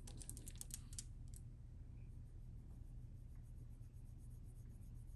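Small clicks of hard beads knocking together as a beaded necklace is picked up, then faint rubbing of a cotton swab on one bead.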